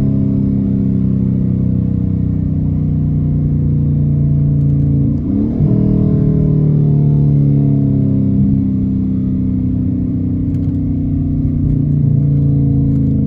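Straight-piped 5.7-litre HEMI V8 of a 2016 Dodge Challenger R/T, heard from inside the cabin while driving. The exhaust note is mostly steady, with a brief break and quick jump in pitch about five seconds in, a paddle-shifted gear change.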